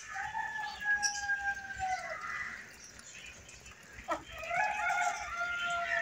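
A rooster crowing twice, each crow a long call of about two seconds that falls in pitch at its end, with a brief click between the two crows.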